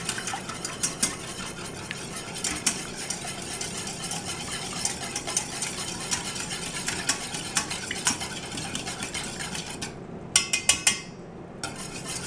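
A utensil stirring and beating egg, milk and oil together in a bowl: a steady run of quick scraping and clicking against the bowl. About ten seconds in, the stirring stops and there are four sharp clinks close together.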